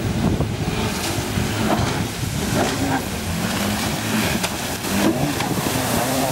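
Jet-drive inflatable speedboat's engine running hard, its pitch rising and falling as the throttle changes through tight turns.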